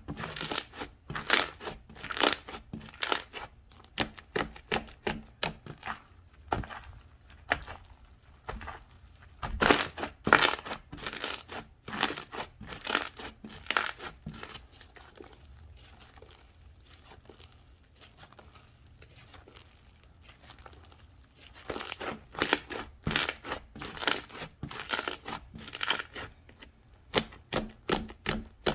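Slime being squeezed, stretched and poked by hand, giving quick runs of sharp clicks and pops, with a quieter spell in the middle.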